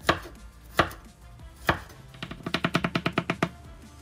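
Chef's knife chopping garlic on a bamboo cutting board: three separate knocks of the blade on the wood, then a fast run of quick chops, about ten a second, starting about two seconds in.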